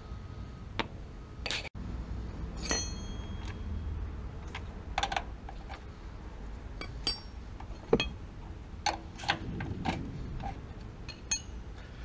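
Scattered metallic clicks and clinks of an open-end wrench and brass fittings at a gas water heater's control valve, a few of them ringing briefly, over a low steady rumble.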